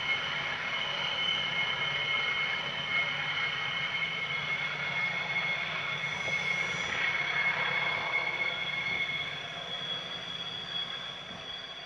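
GE diesel-electric freight locomotives, a class 33 (U20C) with two class 35s (U15C), working under power as the train pulls away, with a steady high whine over the engine sound. It fades from about nine seconds in as the train draws off.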